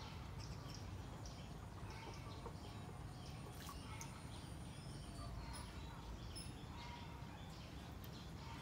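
Faint outdoor ambience of many short bird chirps and calls, repeated irregularly over a low, steady background noise.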